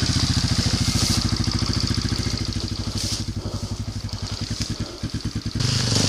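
Single-cylinder enduro motorcycle engine idling, with steady, evenly spaced firing pulses that fade and slow after a few seconds. About five and a half seconds in, a louder dirt-bike engine running close takes over suddenly.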